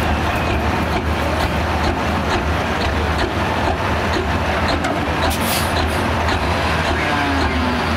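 Pro Stock pulling semi truck's diesel engine running steadily at idle once the pull has ended, a loud, deep, continuous drone.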